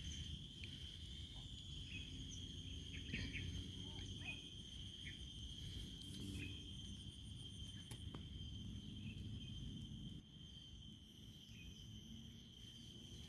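Faint, steady chorus of insects such as crickets, a continuous high trill without pause, over a low background rumble.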